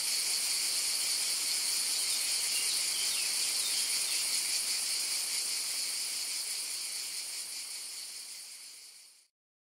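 Chorus of cicadas singing, a dense, steady high-pitched buzz that fades out near the end.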